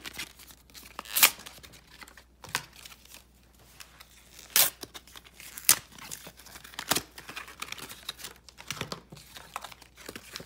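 Cardboard-and-plastic blister packaging of Pokémon card packs being torn open and crinkled by hand: about half a dozen sharp rips among softer crinkling.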